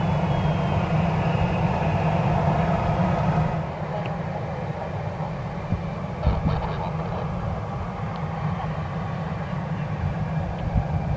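Airbus A321neo's CFM LEAP-1A turbofans running at low taxi power, with a faint high whine over a heavy rumble of wind on the microphone. The whole sound eases a little about three and a half seconds in.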